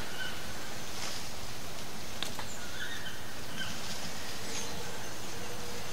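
Rainforest ambience: a steady hiss of background noise with a few short, flat-pitched animal calls scattered through it, and a single sharp click a little over two seconds in.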